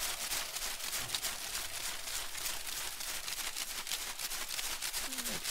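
A rattle shaken steadily as chant accompaniment, giving a dry, rustling crackle of quick, dense clicks. A short falling vocal note comes in near the end.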